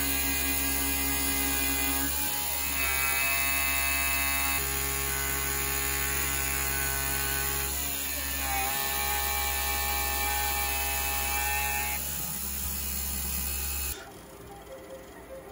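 Taig CNC mill cutting an aluminium plate with an end mill: a steady spindle-motor hum under several whining tones that change pitch every few seconds as the machine's moves change. It stops suddenly about a second and a half before the end.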